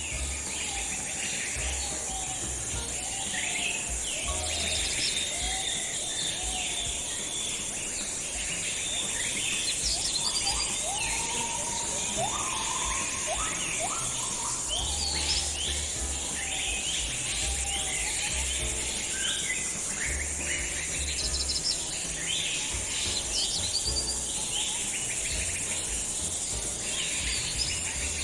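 Many birds chirping and singing at once, short overlapping calls and trills, over a steady high-pitched drone like insects, with a low hum coming and going.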